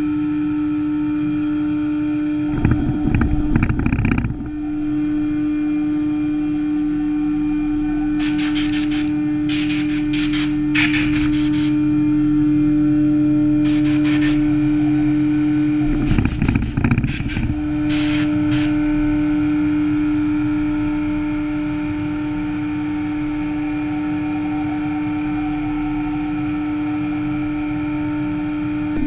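CaMaster CNC router spindle running with a steady whine as its end mill cuts wood. There are louder, rougher stretches of cutting about 3 seconds in and again around 16 to 17 seconds, and several short hissing bursts in between.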